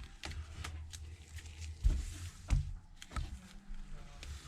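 Scattered light clicks and taps of a small tool on an iPhone 6s Plus's internals as its flex cable connectors are unclipped, about six over a few seconds, over a steady low hum.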